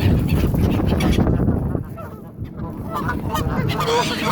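Waterfowl calling in short honking calls, clearest in the last second or so. Under them, a low rumble drops away about two seconds in.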